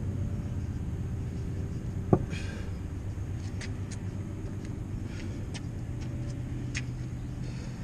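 Cast-iron kettlebell set down on a concrete patio: a single heavy thud about two seconds in, over a steady low rumble. A few faint light clicks follow.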